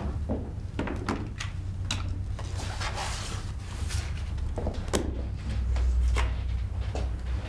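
Scattered small clicks, taps and knocks of objects being handled on a wooden desk, with a brief rustle about three seconds in, over a steady low hum that swells near the end.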